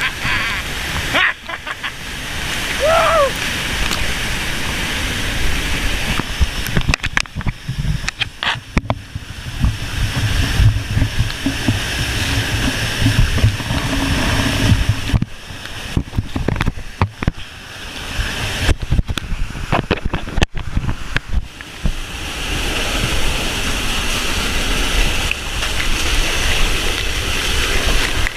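Waterfall in flood heard from up close, a loud steady rush of water with splashing and spray buffeting the microphone, which cuts out and crackles briefly several times.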